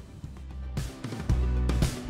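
Background music, soft at first, with bass notes and a beat coming in louder a little under a second in.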